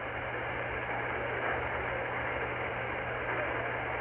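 Icom R30 receiver in lower sideband on 27.385 MHz giving steady band noise: an even, muffled hiss cut off above the voice range, with a low hum underneath.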